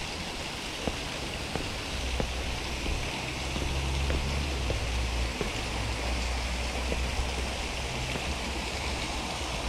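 Waterfall running steadily, a constant rush of falling water. A low rumble joins about two seconds in, with a few faint scattered clicks.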